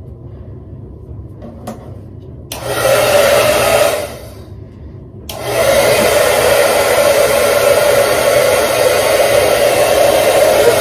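Hand-held Revlon hair dryer starts about two and a half seconds in, runs for a second and a half, and winds down. It starts again about five seconds in and runs steadily as a loud, even blowing noise with a hum to it.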